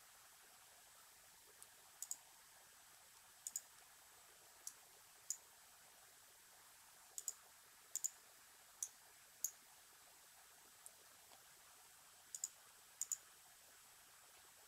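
Computer mouse clicking: about a dozen short, sharp clicks, some single and some in quick pairs, at irregular intervals over faint room tone.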